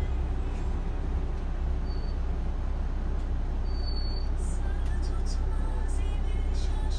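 Steady low rumble of a city bus's engine and running gear, heard from inside the cabin at the front of the bus.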